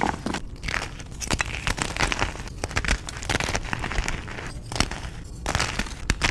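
Blocks of reformed gym chalk being crushed and crumbled, a dense run of irregular dry crunches and crackles.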